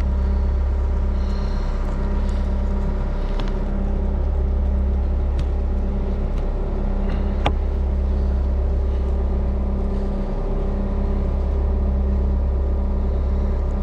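Gehl AL750 compact wheel loader's 74-horsepower diesel engine running steadily with a deep, even hum, and a few faint clicks from the machine, the sharpest about seven and a half seconds in.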